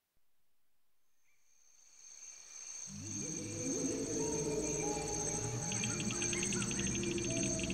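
Night-time ambience fading in over the first few seconds: crickets chirring steadily, with a fast pulsing chirp joining about six seconds in, over a low music drone.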